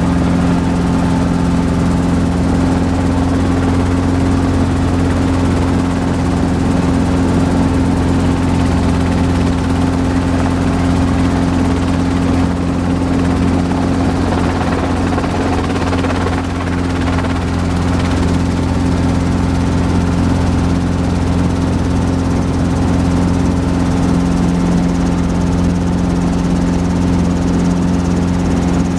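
Robinson R22 helicopter's piston engine and rotors heard from inside the cabin: a steady, loud drone with several low humming tones, as the helicopter hover-taxis low along the taxiway.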